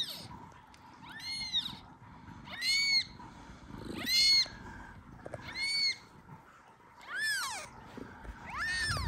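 A newborn kitten, about an hour old, meowing six times at a steady pace, about one cry every second and a half. Each cry is a high, thin call that rises and falls in pitch. It is the kitten calling for its mother before it has learned to nurse.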